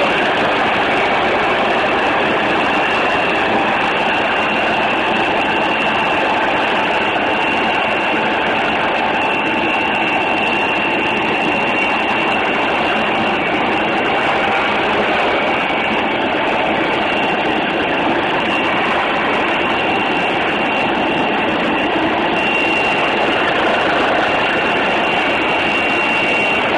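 Helicopter noise as heard from on board: a loud, unchanging drone with a thin high whine over it.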